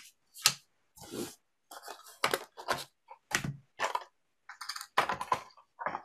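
Stand-up cat pieces of the Cat Crimes logic game being handled and set down, giving about a dozen short, irregular clacks and knocks.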